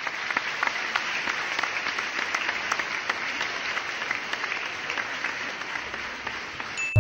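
Applause: a crowd clapping steadily, with dense overlapping claps, cut off abruptly at the end.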